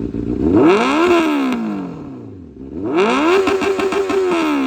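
Benelli TNT 600i's inline-four engine revved twice in neutral through its exhaust: the first blip climbs and falls back, the second is held at high revs for over a second before cutting off suddenly.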